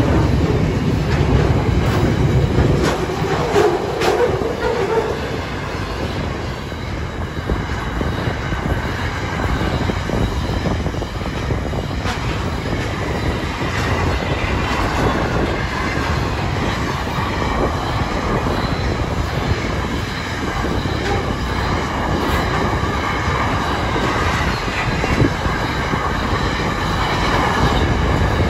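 Freight train wagons rolling past: a steady rumble of steel wheels on rail. Wheel squeal rings out in the first few seconds, and fainter high squealing returns in the second half.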